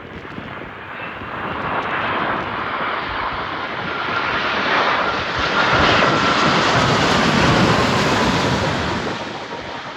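Airliner passing close overhead, its engine noise swelling to a peak and fading near the end, with a high whine that slowly falls in pitch.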